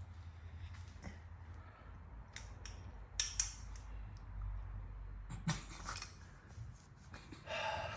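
Scattered light clicks and clinks from small parts being handled, over a low steady hum.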